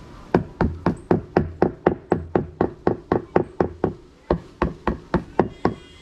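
A hammer striking in quick, steady blows, about four a second, with a short break about four seconds in.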